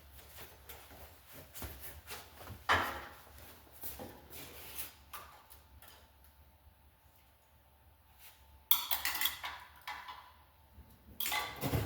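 Small metal parts and hand tools clinking and scraping while valve-train pieces are pulled from a motorcycle cylinder head: scattered light clicks, with louder clattering handlings about nine seconds in and again near the end.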